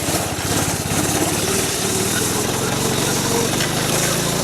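Snowmobile engine running steadily after being hard to start, its pitch rising a little over the last couple of seconds.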